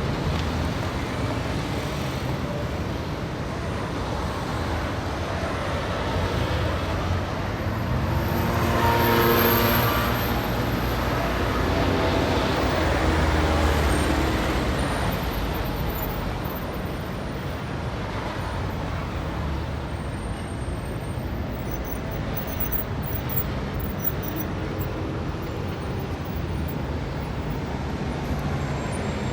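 Street traffic: a steady wash of passing motor vehicles, with one louder vehicle's engine passing close about nine seconds in and another swell a few seconds later.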